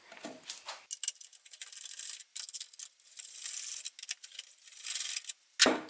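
Ratchet wrench clicking in quick, irregular runs of small metallic ticks while backing out the small 1/4-inch bolts that hold the mower's plastic shroud, with one sharp knock near the end.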